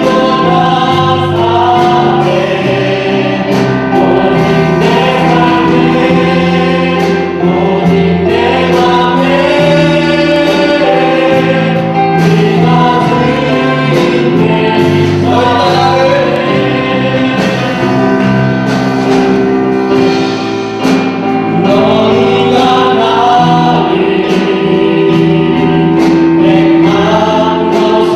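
A choir singing a Christian hymn or gospel song with instrumental accompaniment.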